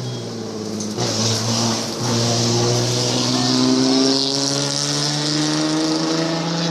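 Classic rally car engine at high revs. It changes up a gear about a second in and again about two seconds in, then revs up steadily as it goes past.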